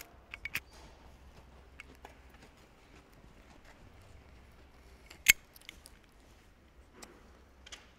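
Cigarette lighter being flicked: a few quick clicks at the start, one sharp loud click about five seconds in, and a fainter click near the end.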